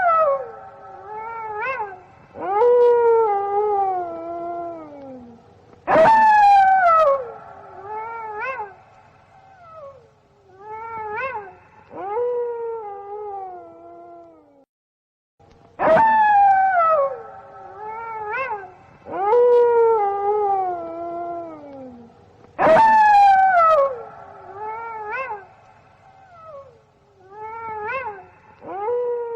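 A pack of wolves howling, several long howls overlapping, each starting high and falling away. There is a brief break about halfway, after which the same chorus seems to play again.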